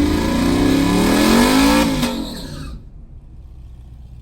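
Vehicle engine revving once, its pitch climbing and then dropping back. The loud sound cuts off abruptly about two and a half seconds in, leaving a low hum.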